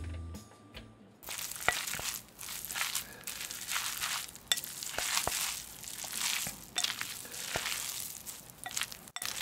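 Close-up eating sounds of cold spicy noodles with aged kimchi: repeated slurps and chewing, with a few sharp clicks of wooden chopsticks against a glass bowl.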